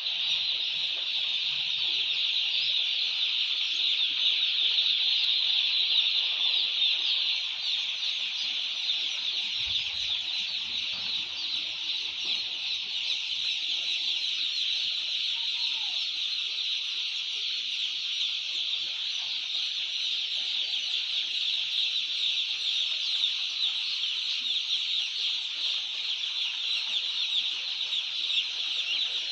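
A large flock of young poultry chicks peeping continuously, with many overlapping high-pitched cheeps forming a constant chorus.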